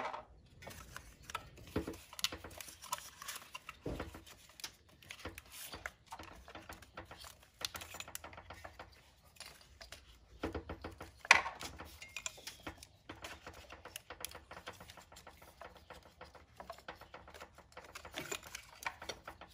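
Scattered light plastic clicks and rustling as ignition coil connectors are unlatched and the coils are worked out of the spark plug wells of a car engine, with one louder click about eleven seconds in.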